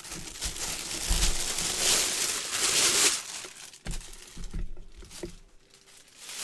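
Plastic packaging crinkling and rustling as a football helmet is unwrapped. It is loud and continuous for about the first three seconds, then breaks into lighter rustles with a few soft knocks.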